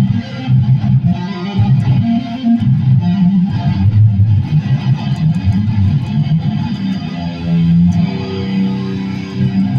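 Guitar being played, a run of plucked and strummed notes with a full low end, settling into held, ringing notes about eight seconds in.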